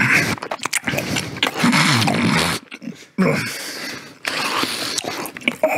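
A man's muffled groaning and heavy breathing with wet mouth sounds as he sucks on a mouthful of sour Skittles, close on a clip-on microphone; it breaks off briefly about three seconds in.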